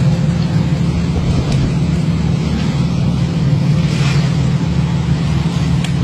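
Fishing boat's engine running steadily, a constant low hum under a rushing noise, with a few faint knocks.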